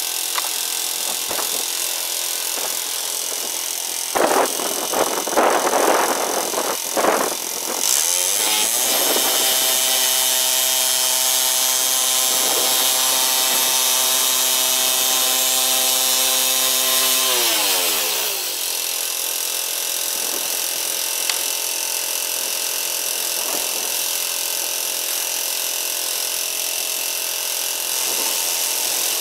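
Petrol engine of a portable bandsaw mill running steadily, with an uneven burst of noise about four seconds in. For about ten seconds it runs faster and louder as the saw head is pushed through a beech log. Its pitch then falls away as it drops back to a slower running speed.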